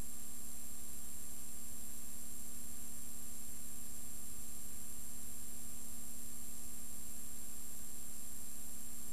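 Steady hiss with a low electrical hum and a faint high whine, unchanging and with no other sound: the blank soundtrack of a silent film transfer.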